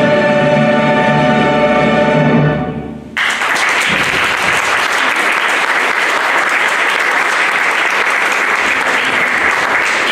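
Music with held notes plays and fades out about three seconds in, and an audience then claps steadily for the rest of the time.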